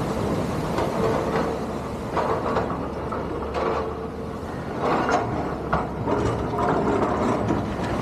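Excavator working rock on a breakwater: a steady low diesel rumble with scattered knocks and clatters.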